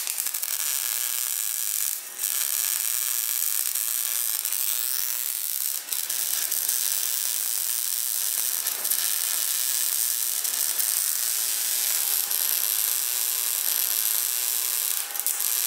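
Lincoln Electric MIG welder arc hissing steadily as tack welds go onto a steel scooter frame. It breaks off briefly about 2, 6 and 9 seconds in, between tacks.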